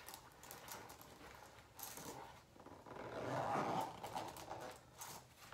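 Faint handling sounds of a tall chained platform boot being pulled on and worked into place: scattered light clicks and rustles, with a louder swell about three to four seconds in.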